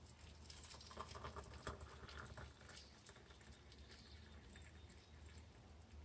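Water poured in a thin stream from a kettle into a porcelain mug over a teabag: a faint trickling splash, busiest in the first half.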